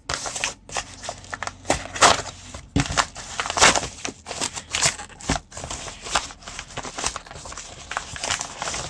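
Hard plastic crackling and crunching, with irregular sharp clicks and knocks, as the power cord is worked apart by hand.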